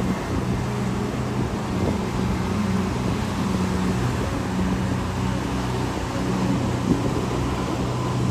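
Steady rush of ocean surf breaking on the beach, with a low steady hum running underneath.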